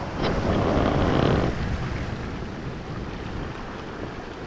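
Surf washing over shoreline rocks, with one wave surging up about a second in and then easing back to a steady wash, and wind on the microphone.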